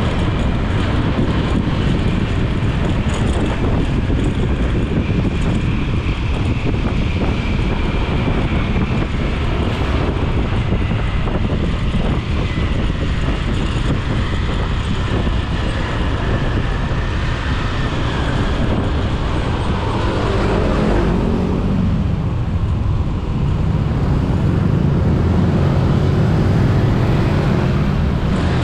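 Riding a motorcycle through city traffic: a steady rush of engine, wind and road noise, with an engine note rising and falling about twenty seconds in.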